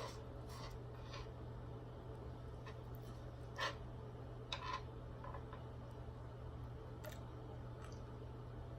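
A few faint, short clicks and scrapes of a knife and fork on a plate while a steak is cut and eaten, over a steady low hum.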